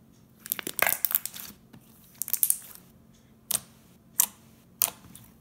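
Clear glitter slime squished in the hands and pressed on a countertop: two stretches of crackly squishing, then three short sharp pops about two-thirds of a second apart.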